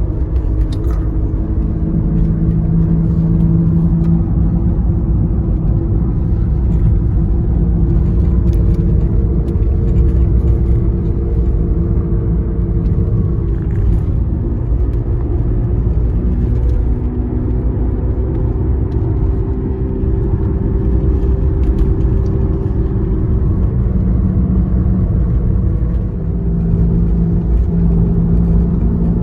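2009 Toyota Prius driving, a steady whine over low road rumble, its pitch shifting a little midway. The owner does not know its cause and files it under transmission noise.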